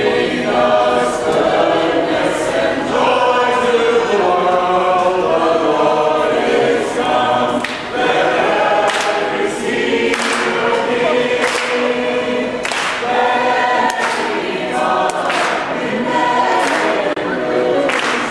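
A group of carolers singing a Christmas carol together in chorus.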